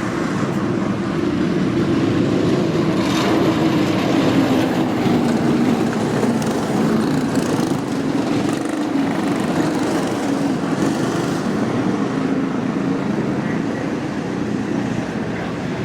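Small cyclekart engines running as the karts drive around, the engine note rising and falling.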